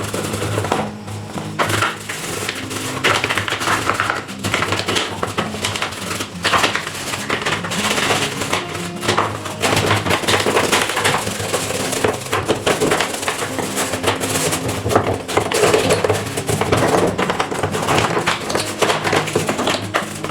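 Background music over the scratchy, rapidly repeated scrubbing of the plastic parts of a top-loading washing machine.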